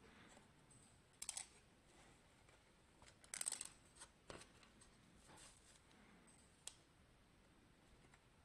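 Faint handling sounds of mini PC parts being worked by hand: a few short clicks and rattles, the loudest cluster about three and a half seconds in.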